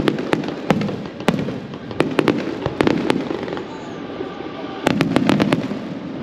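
Aerial fireworks shells bursting one after another: sharp bangs over a rolling low rumble, with a dense run of rapid bangs about five seconds in.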